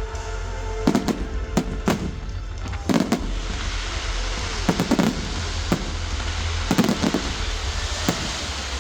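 Aerial fireworks shells bursting in a string of sharp bangs, about one a second, with dense crackling from about three seconds in, over music.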